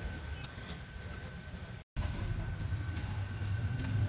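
Steady low background rumble with a thin steady high whine and a few light clicks, cut off by a brief dropout about halfway through.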